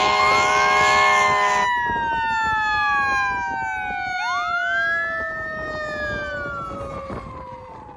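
Fire engine air horn blasting over emergency sirens, the horn cutting off about two seconds in. The sirens go on alone, one winding slowly down in pitch while another rises and falls, fading as the apparatus pulls away.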